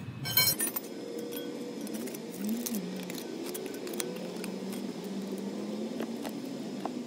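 Steel hand tools clinking and scraping on concrete paver stones: a short clatter of metal on stone about half a second in, then scattered light clicks as a putty knife and flat-head screwdriver are worked into the joints between the pavers.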